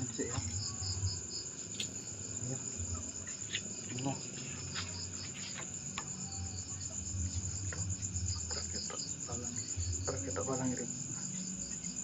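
Crickets chirring steadily in a continuous high trill, with a few faint clicks and knocks mixed in.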